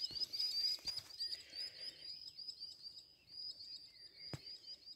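Birds giving a rapid, unbroken run of short, high alarm chirps, several a second. The birds are apparently defending their chicks from a dog.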